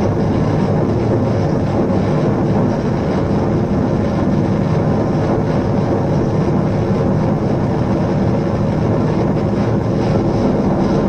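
A dense, steady electronic drone of low rumbling noise, with faint held tones inside it, from a street performer's portable electronic music rig.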